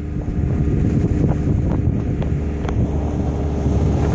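Wind buffeting the microphone on a sailing yacht underway: a steady low rumble with a thin steady hum beneath it and a few light ticks in the middle.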